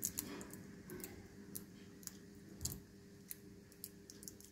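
Faint, irregular small clicks and crinkles of fingertips handling a tiny earbud coin-cell battery and wrapping tape around it, a few ticks louder than the rest.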